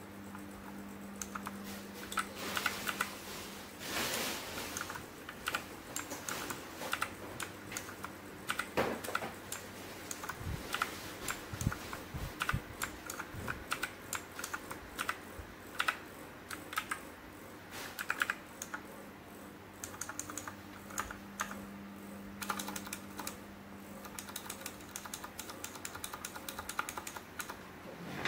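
Typing on an RK61 mechanical keyboard with clicky blue switches: rapid, irregular runs of sharp key clicks with brief pauses between them.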